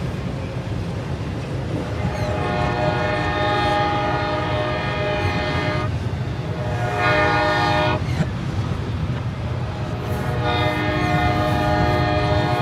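Locomotive air horn sounding over the low rumble of a passing double-stack intermodal freight train, played in reverse: a long blast, a short one, then another long blast.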